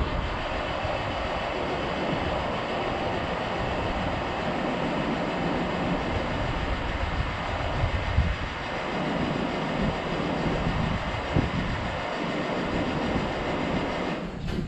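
A heavy farm machine running, a steady rumble with rattling clatter that starts abruptly and holds throughout.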